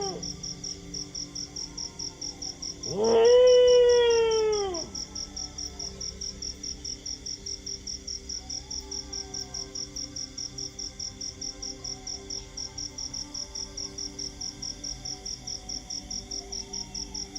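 A dog howls once, about three seconds in: a rising then falling howl lasting about two seconds. Under it, crickets chirp steadily in a high, even pulse of about four chirps a second, with faint distant howls.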